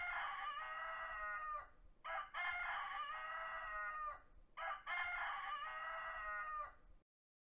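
A rooster crowing three times in quick succession. Each crow is a brief note followed by a long held call, about two seconds in all.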